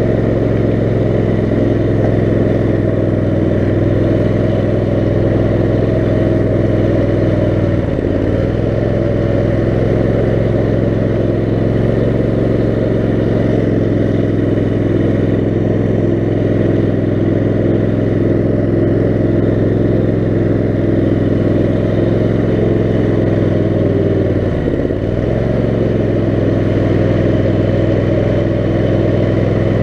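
Kohler 18 HP Command engine of a 6x4 offroad lawn mower running steadily, its pitch dipping briefly twice, about eight seconds in and again about three-quarters of the way through.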